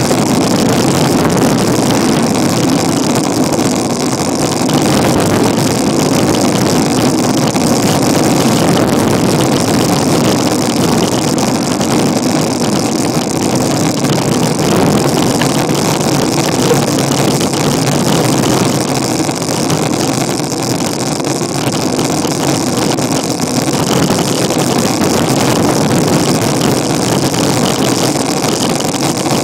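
Loud, steady rush of wind buffeting the microphone of a bicycle-mounted camera on a fast downhill ride, mixed with the road noise of the bicycle rolling over asphalt.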